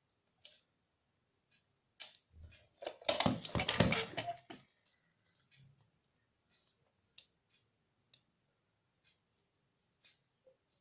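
Handling clicks and rattles as a charger's leads and small parts are picked up and connected: a dense clatter from about two to four and a half seconds in, then scattered single clicks.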